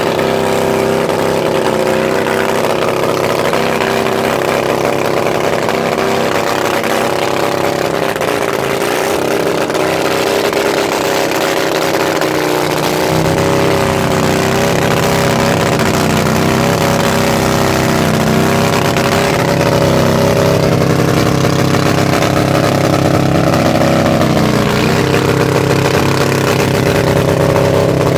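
Custom motorcycle's engine held at steady high revs during a burnout, its rear tyre spinning on the pavement. The sound grows louder and deeper about halfway through, and the engine pitch dips briefly a few seconds before the end.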